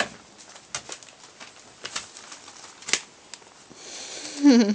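Scattered light clicks and taps, then a louder rustle of newspaper near the end as a puppy moves about a wire crate and over a newspaper-covered floor. A short wavering voice comes in at the very end.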